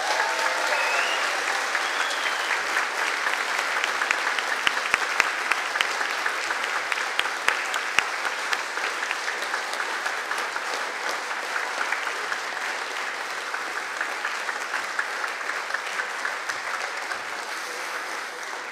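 A large audience applauding, a long, dense round of clapping that eases off slightly near the end.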